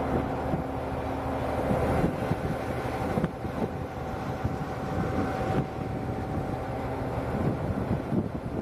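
Komatsu D375A-6 bulldozer's diesel engine running steadily, a constant hum.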